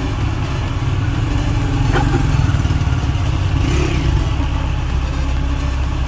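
JCB backhoe loader's diesel engine running steadily, with a short clank about two seconds in.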